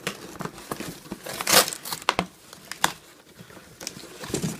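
Cardboard scraping, crinkling and tearing as a boxed item is wrenched out of a tight-fitting outer cardboard shipping box, in irregular scrapes and clicks with the loudest one about one and a half seconds in.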